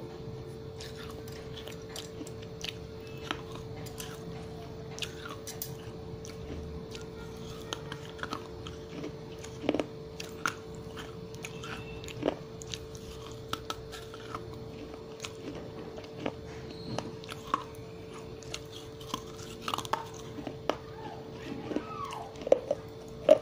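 Close-miked biting and chewing of a piece of wet terracotta clay pot: irregular crisp crunches and crackles, with sharper bites about ten and twelve seconds in and a loud one at the very end. A steady low hum runs underneath.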